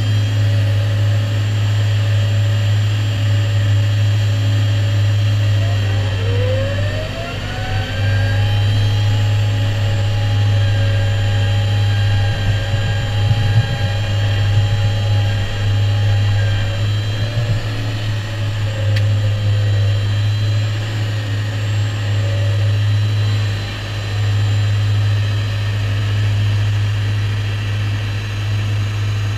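New Holland tractor running steadily, driving a Shelbourne flail hedge-cutter on its reach arm, with the flail head spinning. A whine rises about six seconds in and holds at one pitch for some ten seconds before fading.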